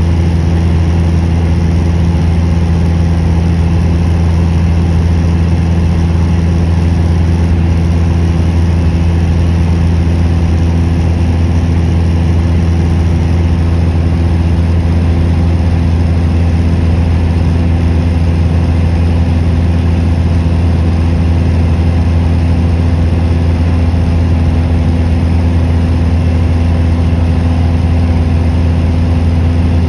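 Steady drone of an airplane's engines heard inside the cabin in flight: a deep, unchanging hum with several steady low tones over an even rushing noise.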